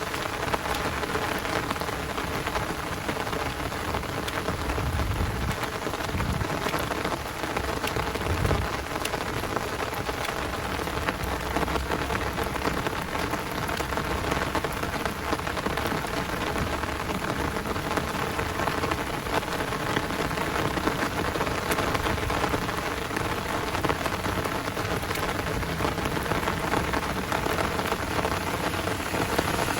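Heavy downpour rain falling steadily, a dense hiss of drops pattering close by. A low rumble rises under it about five to nine seconds in.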